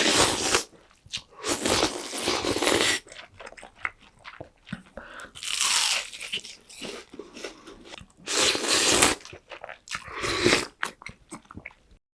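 Close-up eating sounds: loud crunching bites into deep-fried breaded pork cutlet and chewing. There are about five loud crunches with softer chewing clicks between them, and the sound cuts off just before the end.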